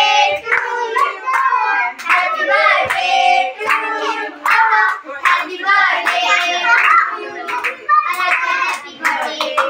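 A group of children singing a birthday song together while clapping their hands along, as the cake is cut.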